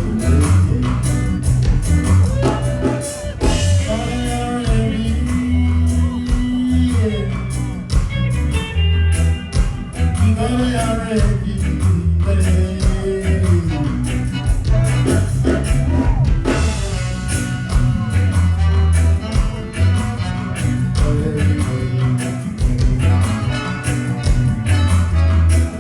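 Live reggae band playing at a sound check, a heavy pulsing bass line and drums under guitar, with a voice singing a melody over much of it.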